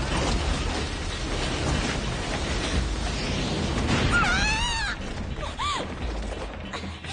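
Creature-attack sound effects: a dense, loud rumbling and grinding noise, with a wavering high shriek about four seconds in and a shorter rising-and-falling cry near six seconds.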